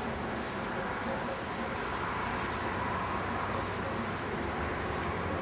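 Steady outdoor background noise of distant road traffic, an even wash of sound with no distinct events.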